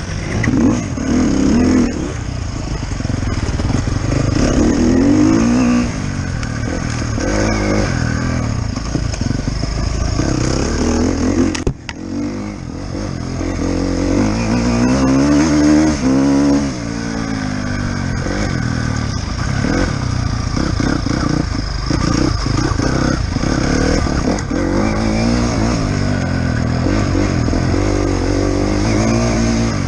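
Enduro motorcycle engine heard on board at race pace, its revs rising and falling again and again as the rider works the throttle, with a brief sharp drop just before halfway followed by a long climb in revs. Short knocks and rattles from the bike over rough ground run through it.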